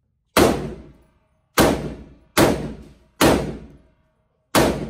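Five rifle shots from an AR-style semi-automatic rifle in an indoor range lane, fired at an uneven pace about a second apart. Each shot rings off the walls and dies away within about half a second.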